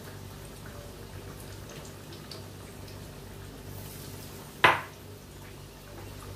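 Oil bubbling and sizzling in a wok as battered egg slices deep-fry. About four and a half seconds in there is a single sharp, loud hit as another besan-batter-coated piece goes into the hot oil.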